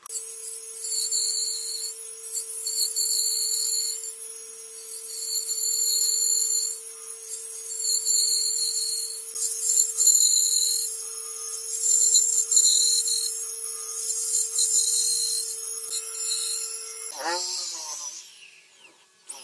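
Bandsaw running with a steady hum while its blade cuts a row of kerfs into a pine board, the cutting noise swelling and fading in repeated passes. About 17 seconds in this stops and an electric drill takes over, its pitch sweeping up and down as it bores into the wood.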